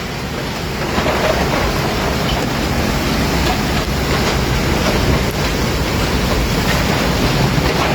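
Tornado winds blowing hard: a loud, steady rush of wind, with gusts buffeting the microphone.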